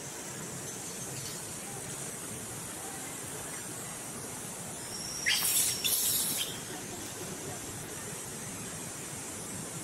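Steady outdoor background hiss, broken about five seconds in by a shrill, high-pitched sound in two short parts lasting about a second and a half.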